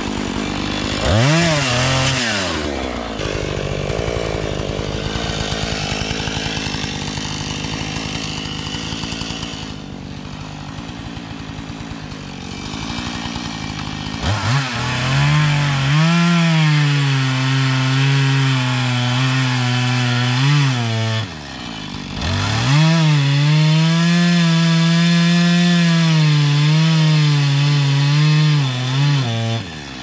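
Two-stroke Husqvarna chainsaw cutting a felled red pine log. A quick rev comes about a second in, then the saw runs at a lower level. In the second half come two long full-throttle cuts with a short drop between them.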